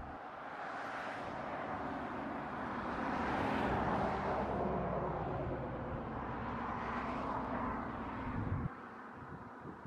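Road traffic noise: a vehicle going by, swelling to a peak about three and a half seconds in and then fading, with a low rumble that cuts off suddenly near the end.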